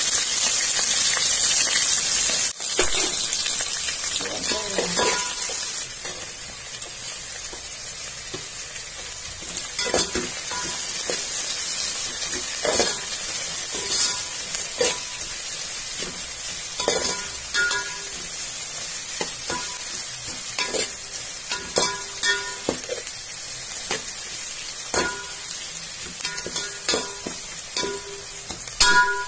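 Sliced onions and green chillies sizzling in hot oil in a large metal pot, loudest at first and settling into a steadier, quieter hiss after about six seconds. A metal spoon stirs them, knocking and scraping against the pot with short ringing clinks.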